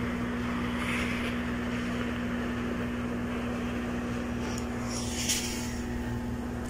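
Xiaomi Zajia GT-301W handheld garment steamer running as it is passed over fabric: a steady electric hum from its pump under a hiss of steam, with a brief louder hiss about five seconds in.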